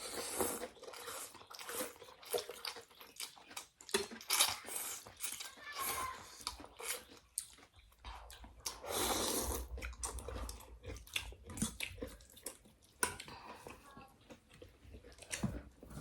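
People eating noodle soup close to the microphone: irregular chewing, biting and slurping, with a longer slurp about halfway through.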